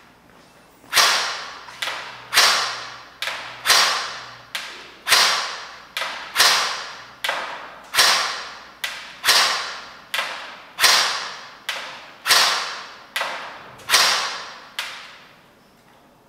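Airsoft G3 DMR firing about ten single shots, roughly a second and a half apart, each crack ringing off in a large indoor hall. A fainter click falls between most of the shots.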